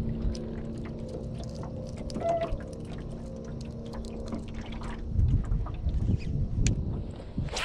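A small fish being swung in on the line and unhooked by hand in a jon boat: scattered sharp clicks and knocks of handling the fish and lure, with water splashing. There are a few louder low thumps against the boat about five seconds in.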